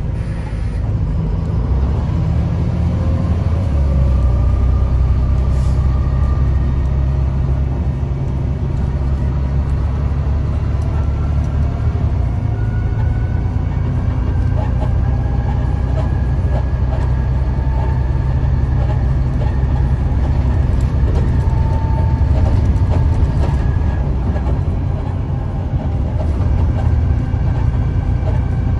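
Volvo B7TL double-decker bus's six-cylinder diesel engine running under way, heard from inside the passenger saloon: a steady low drone whose note shifts a few times, with faint whines that rise slowly in pitch as the bus gathers speed.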